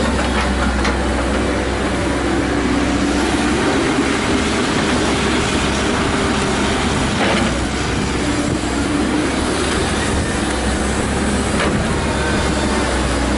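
CAT 312C hydraulic excavator running steadily under load as it digs dirt, swings over and dumps a bucketful into a steel end-dump trailer, then swings back to dig. A few sharp knocks of the bucket and linkage stand out.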